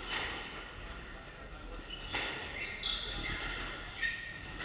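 Squash rally: a few sharp knocks of the ball struck by racquets and hitting the court walls, with short high squeaks of court shoes on the wooden floor in the second half.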